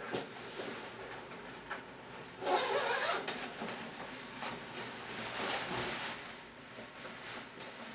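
Zipper of a wet membrane windstopper hunting jacket being pulled open, one rasp about two and a half seconds in, followed by the rustle of the jacket's fabric as it is opened and pulled off.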